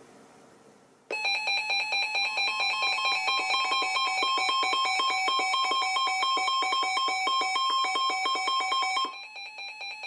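Weather alert radios sounding their electronic alert tones: a loud, rapidly pulsing beep of a few steady pitches that starts suddenly about a second in and drops to fainter tones about a second before the end, marking a new weather alert coming in.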